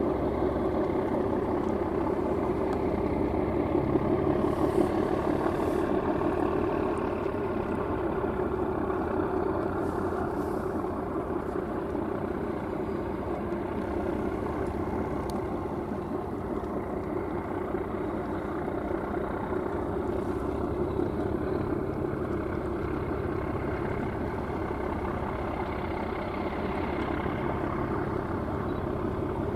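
Ship diesel engines running steadily as a tug pushes a large sailing ship round, a continuous low drone that eases slightly after the first six seconds.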